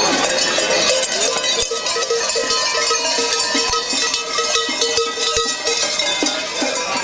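Several large cowbells, worn at the belts of fur-costumed Klausen, clanging continuously as the wearers stride and jump. Many bells ring over each other at different pitches, with frequent sharp strokes.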